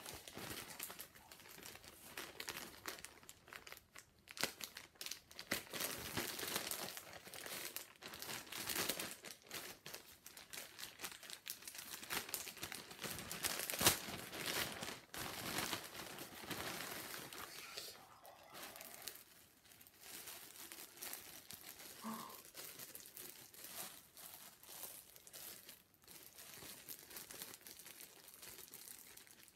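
Thin clear plastic poly bags crinkling and rustling as they are handled and pulled open, in an irregular run of crackles with the loudest sharp crackle about halfway through.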